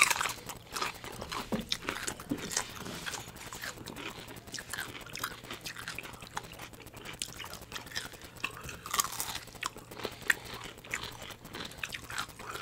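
Close-miked eating of a seafood boil of king crab, lobster and mussels: chewing and biting, with many small irregular crunchy clicks.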